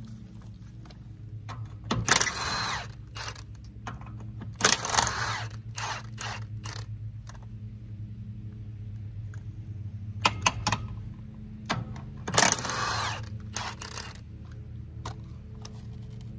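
Cordless impact wrench run in four loud bursts of under a second each, with a few shorter blips, spinning lug nuts off a truck wheel. A steady low hum runs underneath.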